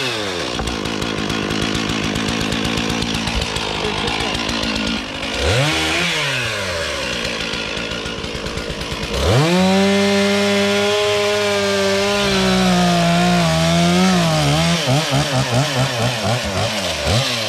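Stihl MS 461 two-stroke chainsaw cutting hard wood. The engine note drops and labours while the chain is in the cut, climbs back to a high steady pitch about nine seconds in, then sinks and wavers again near the end as it bites back into the wood.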